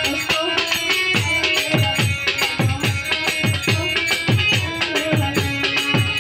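Live Bengali devotional folk music: a dhol barrel drum beating a quick steady rhythm, about three strokes a second, under a melody line. The drum thins out at the start and comes back in strongly about a second in.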